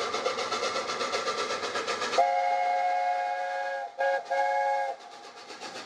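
Steam locomotive running with a rapid, rhythmic rushing noise, then its steam whistle: one long blast a couple of seconds in, followed by two short toots. The locomotive noise carries on more quietly after the whistle.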